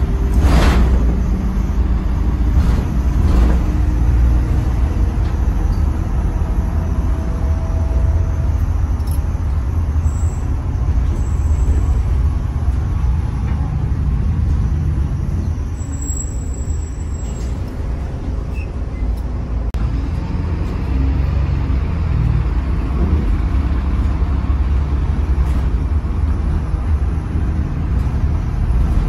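Volvo B8RLE bus heard from inside the passenger saloon while under way: a steady low rumble of the diesel engine and road noise. A short hiss comes about half a second in.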